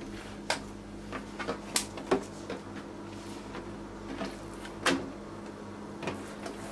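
Hands stretching thin, buttered dough across a wooden board: about half a dozen short, light taps and clicks as fingers pull the dough's edges and touch the board, the clearest about two seconds and five seconds in, over a steady low hum.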